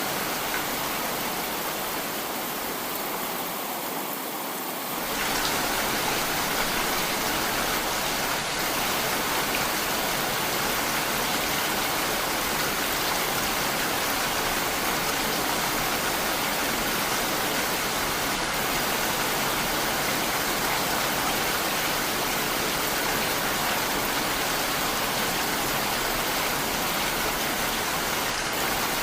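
Heavy rain falling as a steady, dense hiss with no separate drops standing out. It turns a little louder and fuller about five seconds in.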